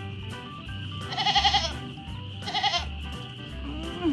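Background music with a steady bass beat, over which a wavering bleat-like animal call repeats about every second and a half.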